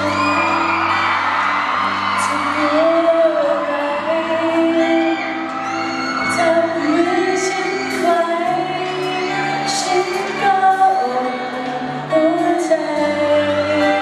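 A woman singing a Thai pop song live into a microphone over a backing band, her melody moving in long held notes over a steady bass line.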